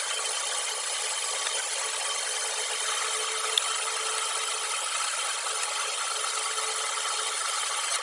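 Metal lathe drilling into the end of a spinning metal bar with a twist drill: a steady cutting noise of the bit and chips, with the lathe running. A faint whine joins about three seconds in, and there is a single sharp tick shortly after.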